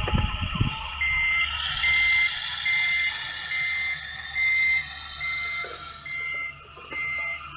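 Reversing beeper of a scale RC Mercedes-Benz SK 3544 8x8 dump truck as it backs up: eight steady, even beeps at one pitch, each about half a second long and about one a second, over a steady hiss.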